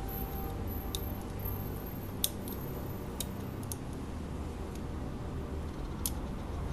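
About half a dozen small, sharp clicks, the loudest about two seconds in, from fingers working at an opened OnePlus Nord smartphone's motherboard and connectors to take the board out, over a steady low background hum.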